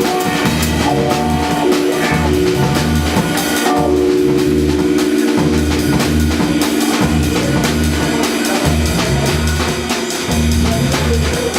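Jazz trio music: a drum kit with cymbals and snare keeping time over a steady bass line, under long held melody notes.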